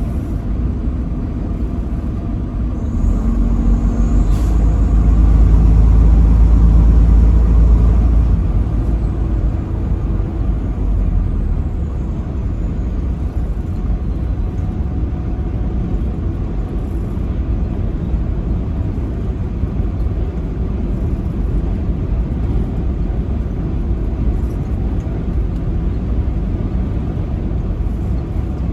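Steady engine and road noise of a truck driving on a highway, swelling louder for a few seconds about four to eight seconds in, then settling back to an even rumble.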